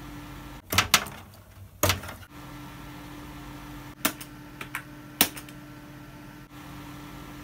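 Computer keyboard keys pressed a handful of times, sharp irregular clicks while a BIOS setup screen is navigated, over the steady hum of the running desktop PC.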